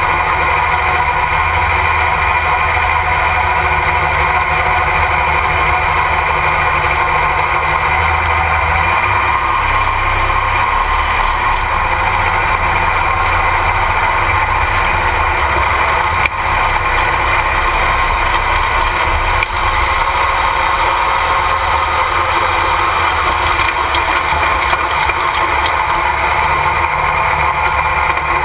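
Light modified pulling tractor's engine idling steadily and loudly, heard up close from the tractor itself.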